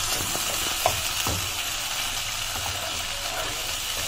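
Ground onion-ginger-garlic masala paste sizzling in hot mustard oil in a non-stick kadai while a wooden spatula stirs it, as the masala is fried down (bhuna). Steady hiss, with a couple of light knocks of the spatula about a second in.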